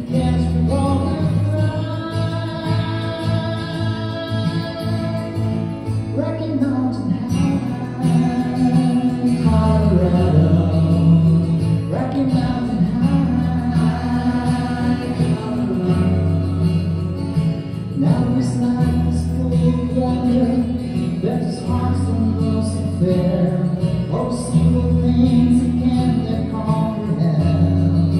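Live acoustic guitar music with a voice singing long held notes over a low bass line.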